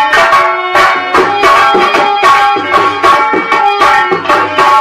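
Live nautanki folk-theatre music: a two-headed barrel drum beating a brisk, even rhythm under a held melody line.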